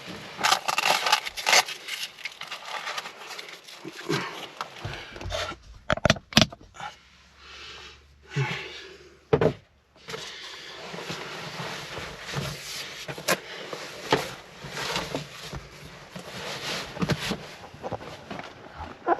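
Rustling and scraping of fabric seat covers being pulled and fitted over a car seat, with scattered clicks and knocks from the handling.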